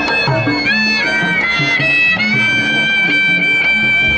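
Betawi folk music of the kind that accompanies ondel-ondel giant puppets: a high, fiddle-like melody in long held notes with sliding pitch, over a drum rhythm.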